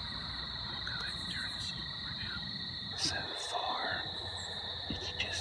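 Steady high-pitched chorus of evening insects, with a few short calls over it and a couple of sharp clicks about three seconds in and again near the end.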